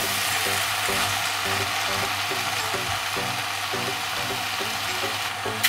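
Diced vegetables with tomato paste sizzling steadily as they fry in a pan, over soft background music.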